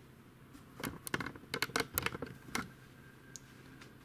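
Hands handling a laptop: a quick run of light clicks and knocks, about eight in under two seconds, starting about a second in.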